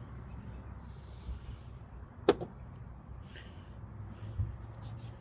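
Handling of old hand tools: light rustling, one sharp click of metal set down or knocked a little over two seconds in, and a softer knock later, over a steady low hum.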